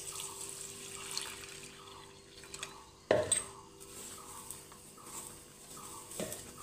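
Water poured from a plastic jug into a steel bowl of flour and sugar, then a hand mixing the wet flour against the bowl. A sharp knock about three seconds in.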